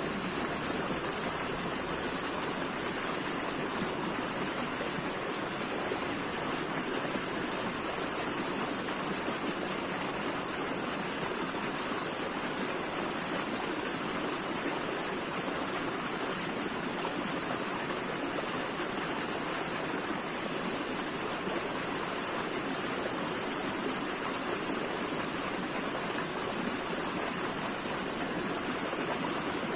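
Running water flowing steadily and evenly, like a stream, with a steady high hiss on top.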